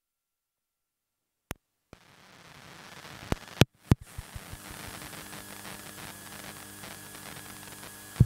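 Dead silence, then a few sharp clicks and pops, the loudest about three and a half seconds in. After that a steady hiss with a faint hum sets in: the noise floor of the mixer and amplifier sound system with no signal playing.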